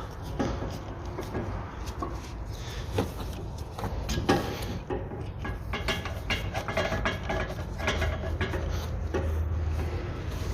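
Scattered metallic knocks, clinks and scraping as a CV driveshaft is pushed onto the gearbox flange and shifted to line up its bolt holes, over a low steady hum that grows stronger near the end.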